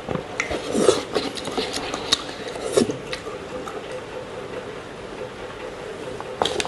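Close-up eating of instant noodles with chopsticks: small clicks and scrapes of the chopsticks in the noodle cup along with mouth sounds, busiest in the first three seconds, then quieter.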